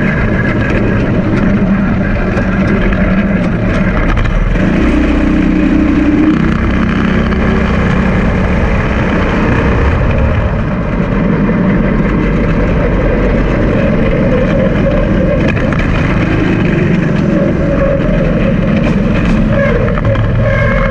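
Small engine of a go-kart running loudly under way, heard up close with tyre and road noise. Its pitch rises for a moment about five seconds in, and it eases off briefly around ten seconds.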